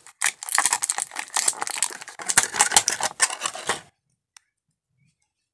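Clear plastic blister tray crackling and clicking as an action figure is worked loose and pulled out of it, with rapid small clicks that stop about four seconds in.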